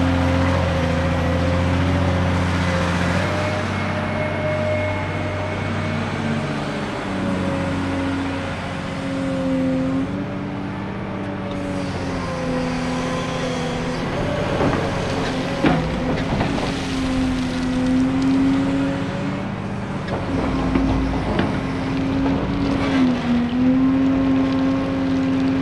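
Cat 385C LME hydraulic excavator's Cat C18 diesel engine running steadily at working revs, its pitch sagging slightly and recovering as the hydraulics take load. A few sharp knocks come about halfway through and again later.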